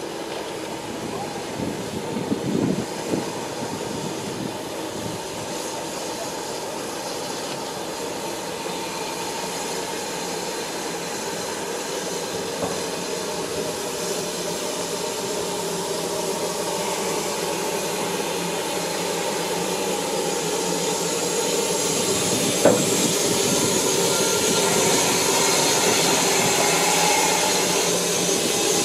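BR Standard Class 2 2-6-0 steam locomotive 78018 and a brake van rolling slowly past, the steam hiss and running noise growing steadily louder as the engine comes alongside. A single sharp clank about three quarters of the way through.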